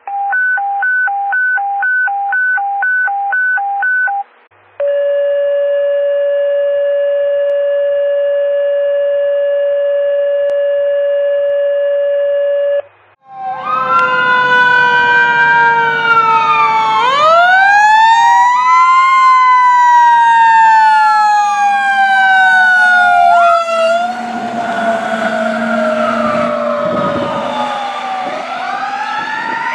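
Electronic alert tones: a two-note beep repeating about twice a second for about four seconds, then one long steady tone. From about 13 seconds in, a 2015 Sutphen fire engine's sirens come in: a mechanical Q siren and an electronic wail together, their pitches winding up and down.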